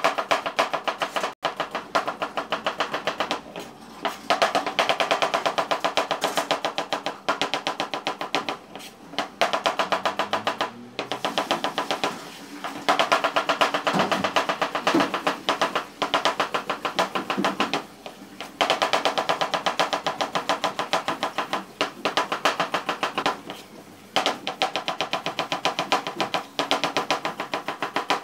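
Chef's knife rapidly slicing onions on a cutting board: fast, even chops in runs of a few seconds, broken by short pauses about every four to six seconds.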